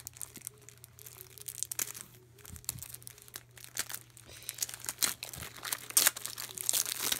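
Foil wrapper of a trading card pack crinkling and tearing as it is ripped open by hand, in irregular crackles that grow louder and denser in the second half.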